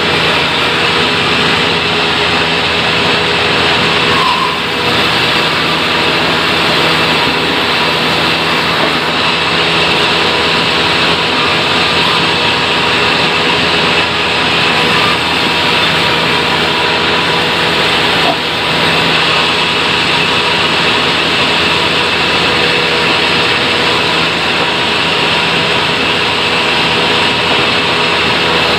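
Sawmill machinery sawing acacia wood, running steadily and loudly as one constant drone with a fixed high whine and a low hum, unbroken throughout.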